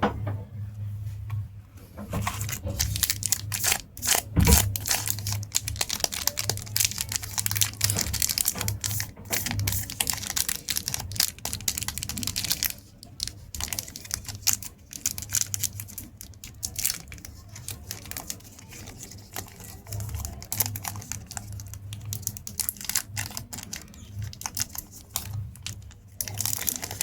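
Chocolate wrappers being handled, crinkling and tearing open in a quick, irregular run of crackles.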